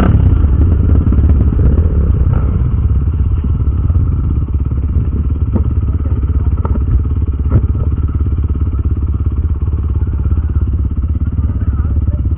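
Trail motorcycle engine running steadily under way, with a few sharp knocks and clatter from riding over rough ground.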